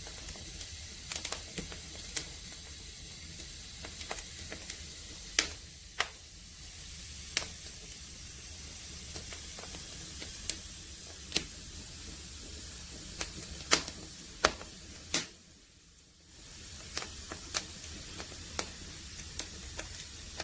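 Wood fire burning in an agungi, a traditional Korean firebox: a steady hiss with sharp pops and snaps of burning firewood scattered throughout. The hiss briefly drops away about three quarters of the way through, then returns.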